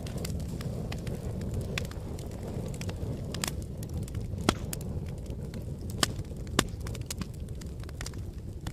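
Wood fire crackling: a steady low rumble of flames with scattered sharp pops and cracks from the burning logs, the three loudest about four and a half, six and six and a half seconds in.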